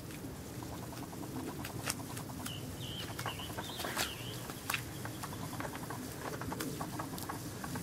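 Carolina dog pawing and nosing at wet mud, a run of small scratching clicks and wet patters. A short high wavering chirp sounds near the middle.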